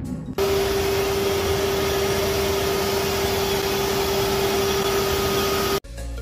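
Steady loud machinery noise of a ship's engine room around a running oil separator: an even wash of noise with one steady pitched hum held throughout. It starts suddenly about half a second in and cuts off suddenly near the end.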